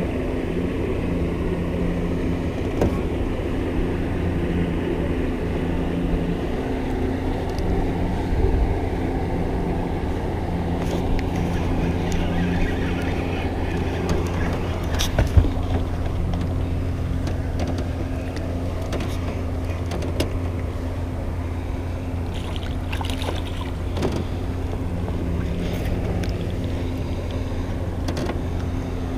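Boat motor running steadily: a constant low hum with a steady tone over it. A few short knocks and clicks sound through it.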